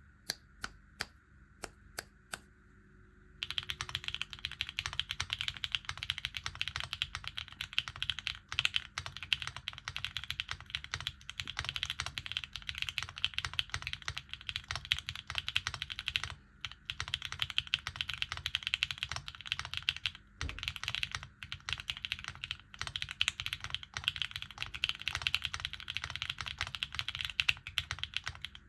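Typing on a gasket-mounted Mode Designs Tempo HHKB custom mechanical keyboard with HMX Macchiato switches, an FR4 plate and plate and case foam. A few single keystrokes come first, then continuous fast typing starts about three and a half seconds in, with a few short pauses.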